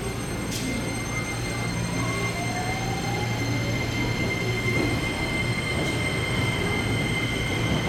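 Shizuoka Railway A3000-series electric train standing at the platform: a steady low hum with a constant high-pitched whine from its electrical equipment, echoing in the covered station.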